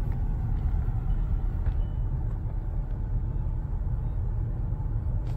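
Steady low rumble of a car in traffic, engine and road noise heard from inside the cabin on a phone's microphone.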